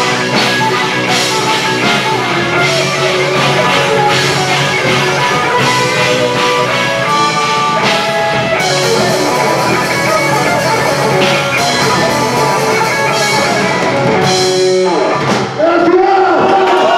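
Metal band playing live: distorted electric guitars, bass and a drum kit, loud and dense, through a club PA. About fifteen seconds in the song stops and the crowd starts cheering and shouting.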